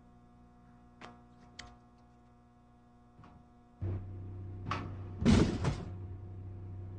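Soda vending machine starting up with a steady low hum. A click follows, then a loud rattling rumble about half a second long, as a bottle drops down the chute into the tray.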